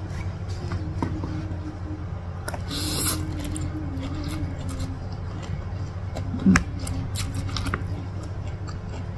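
Close-miked eating sounds: a fork and spoon clicking against the plate as fried instant noodles are lifted, then a slurp of noodles about three seconds in, followed by chewing and wet mouth sounds, over a steady low hum.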